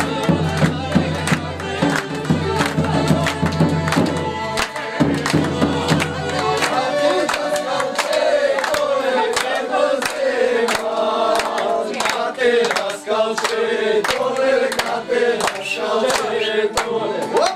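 A group of men clapping in a steady rhythm, about two to three claps a second, and singing together, the singing strongest from about seven seconds in. A low steady drone underneath stops about seven seconds in.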